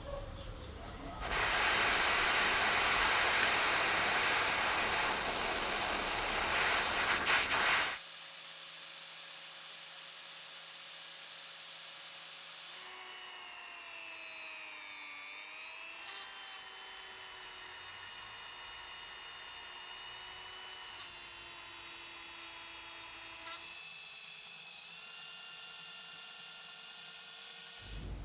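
A small power tool, drill-like, runs with a loud, even whirring noise for about seven seconds and cuts off suddenly. It is followed by quieter steady tones that slide down and back up once and shift in pitch a few times.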